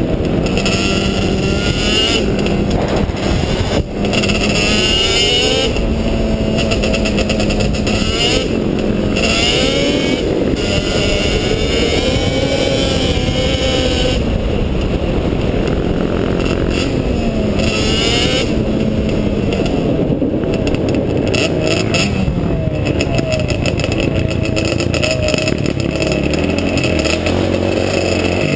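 Sport quad (ATV) engines running under hard throttle while riding, the pitch repeatedly climbing and dropping, with a short dip about four seconds in.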